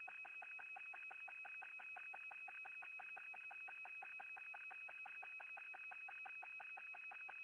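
Faint steady high-pitched tone with a rapid, even pulsing of roughly seven beats a second, heard on the space station's docking mission audio feed.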